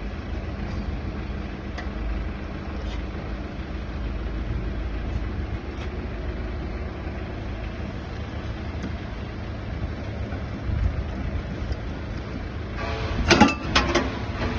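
A quick cluster of sharp metal clanks and clicks near the end, from stainless steel parts of an auger powder filler being handled and fitted, over a steady low rumble.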